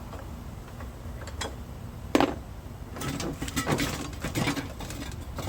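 Metal clunks and rattles from work on a zero-turn mower deck: one sharp clunk about two seconds in, then a second or so of knocks and rattling as the deck is raised and the spindle handled.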